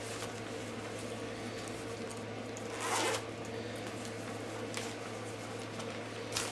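A zipper on a fabric chest bag pulled once, a short swish about three seconds in, over a steady low hum, with a few faint ticks of handling.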